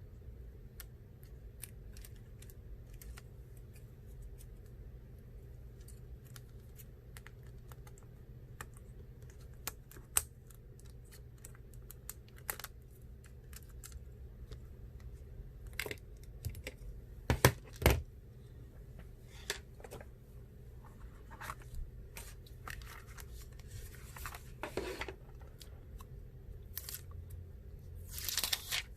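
Scattered small clicks and taps of repair tools and small metal parts being handled on a disassembled iPhone XR, with a few louder knocks a little past halfway.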